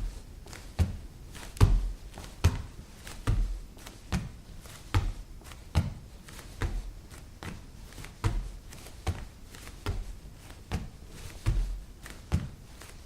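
Repeated jumps on a laminate floor: a heavy thud on each landing, with a light click or tap from the floor just after, about one landing every 0.8 seconds.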